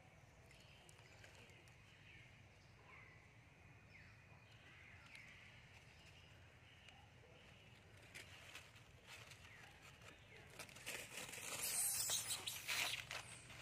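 Dry leaf litter crackling and rustling as long-tailed macaques move over it, loudest about eleven to thirteen seconds in. Faint high chirps in the first half.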